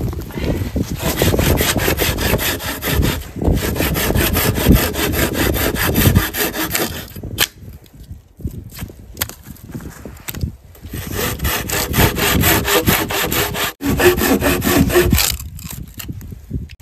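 Hand saw cutting through wood in quick, even back-and-forth strokes. The sawing pauses for a few seconds partway through, then starts again.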